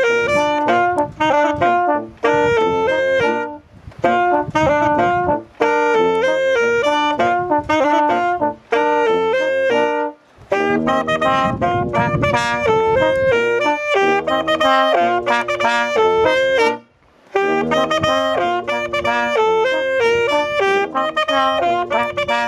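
A brass-and-reed trio of trombone, tuba and saxophone playing a Bavarian Zwiefacher folk dance tune, with a few short breaks between phrases.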